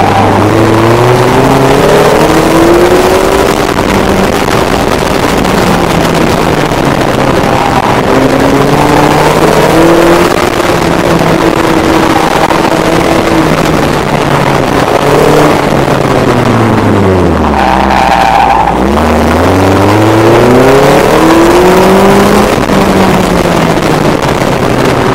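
Ariel Nomad's engine, a Honda 2.4-litre four-cylinder, heard onboard, revving up and down repeatedly as the car is driven hard, over a steady rush of wind noise. About two-thirds of the way through the revs drop right down and then build up again.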